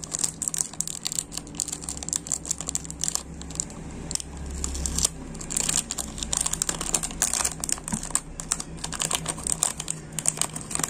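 Plastic seal being picked at and peeled off a diecast model's box: a dense, uneven run of small clicks, crackles and crinkles from handling the plastic.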